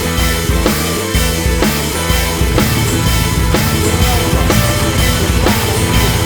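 Background rock music with a steady, driving drum-kit beat.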